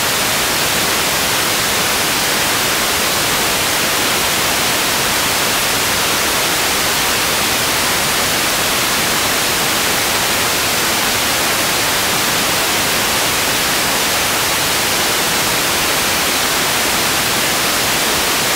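Loud, steady static hiss with nothing else in it, typical of a recording channel carrying no signal while the picture is a blank blue screen.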